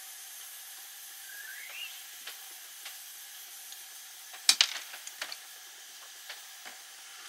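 Clicks and snips of small hand tools working on a freshly soldered radio antenna cable, the loudest a sharp cluster of clicks about four and a half seconds in, over a steady hiss. A short rising squeak comes about one and a half seconds in.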